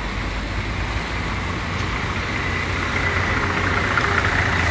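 Road traffic on a wet city street: a steady rumble of passing vehicles that grows gradually louder toward the end.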